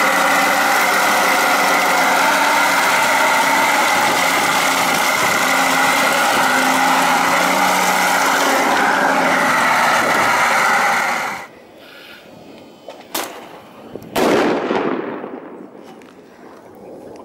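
RC model tanks running with a loud, steady engine-like drone and motor whine, which cuts off abruptly about eleven seconds in. Then come a couple of sharp clicks and, about fourteen seconds in, a single loud bang that fades away over a second or two: a real firecracker set off in an RC tank's gun muzzle.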